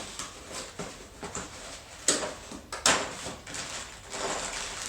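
Furniture assembly hardware being handled: rustling and small clicks of screws and plastic parts, with two sharper clacks about two and three seconds in.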